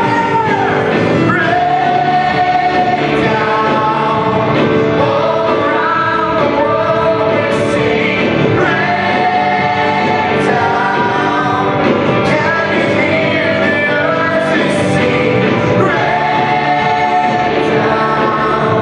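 Live gospel worship band of electric guitars, drums and keyboard backing a choir singing long held phrases, in a large hall.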